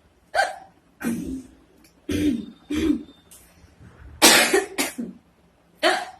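A woman hiccuping repeatedly: six short, sharp bursts about a second apart, the loudest and longest about four seconds in.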